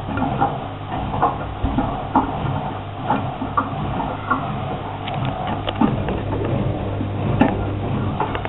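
Washing machine drum turning at tumble speed with a steady motor hum. Two trainers alone in the drum knock against it repeatedly, about once a second.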